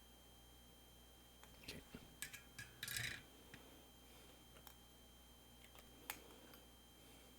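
Quiet room with a steady low hum, broken by a quick run of light clicks and scrapes about two seconds in and one sharp click near six seconds, as small tools and a metal cable plug are handled.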